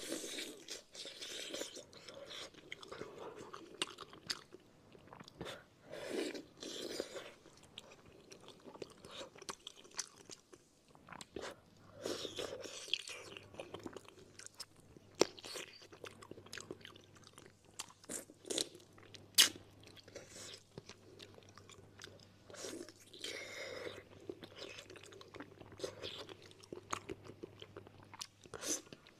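Close-up eating sounds of braised fish: wet chewing, biting and mouth sounds, broken by many sharp clicks, the loudest about two-thirds of the way through.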